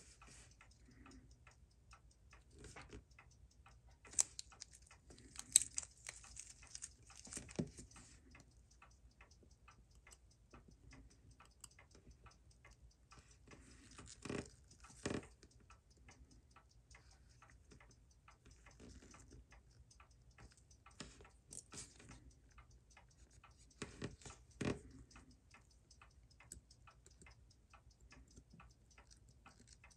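Faint, rapid, even ticking of a Seiko 6139 automatic chronograph movement running in its holder. A few louder clicks and knocks of tools and handling are heard about 4 to 8 seconds in, again around 14 to 15 seconds, and near 21 and 24 seconds.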